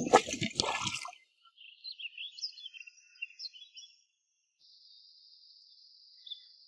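Brief water dripping and splashing in the first second. Then faint small-bird chirps, and near the end a steady high insect buzz lasting a couple of seconds.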